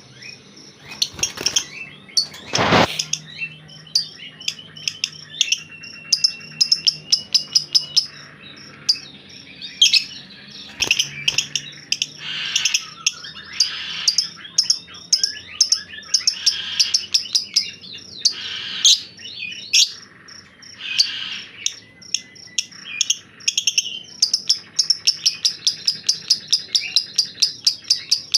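White-rumped shama (murai batu) giving long runs of rapid, sharp chattering notes and clicks, broken by a few short whistles and one held whistle, in place of its usual song: a grumbling chatter.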